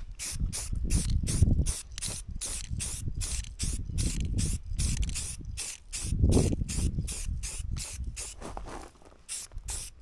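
Aerosol spray paint can hissing in short bursts, about three a second, as the can runs nearly empty.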